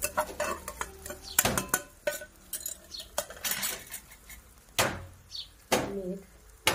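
Spoon clinking and scraping against stainless-steel bowls and the tins of a spice box: a string of sharp metallic knocks, some louder ones toward the end.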